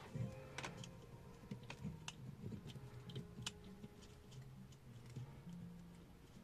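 Scattered light clicks and taps, a second or so apart, of a stiff single-core electrical wire and a transformer being handled on a wooden table as the wire is wound a turn through the transformer's core.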